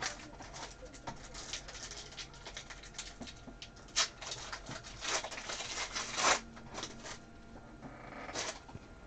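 Foil trading-card pack wrappers crinkling and being torn open, with cards handled and shuffled, in a run of irregular short crackles. A longer, louder stretch of crinkling comes about five seconds in.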